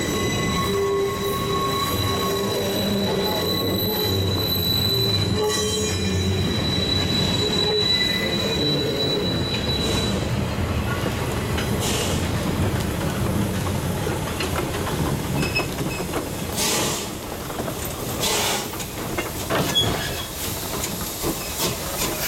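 Passenger cars of a Shay-hauled train rolling slowly past on curved track, the wheel flanges giving a steady high squeal for about the first ten seconds. The squeal then fades into a run of sharp clanks and knocks as the Shay geared steam locomotive draws alongside.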